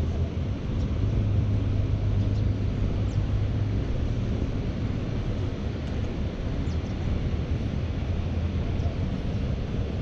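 A low, steady motor hum over a constant outdoor rumble, louder from about one to four seconds in.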